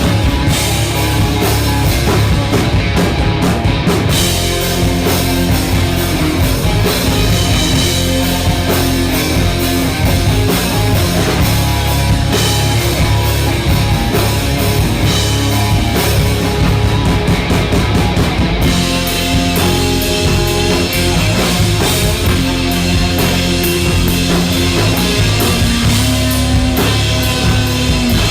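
Background rock music with driving drums and distorted guitar, in a heavy-metal style.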